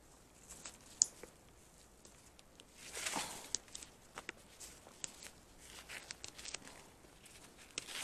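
Gloved hands handling trellised Korean squash (hobak) vines: leaves and stems rustling, with scattered small clicks and snaps. There is a sharp click about a second in and a longer rustle about three seconds in.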